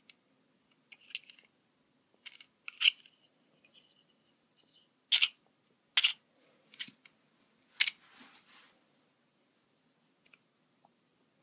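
Beyblade Burst starter set packaging being opened and handled: about half a dozen sharp snips and clicks, spaced irregularly, the loudest a few seconds in.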